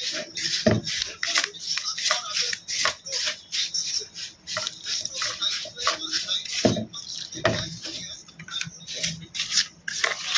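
A spoon stirring and scraping a thick mixture of desiccated coconut, milk powder, ghee and milk around a bowl, in quick irregular strokes, several a second.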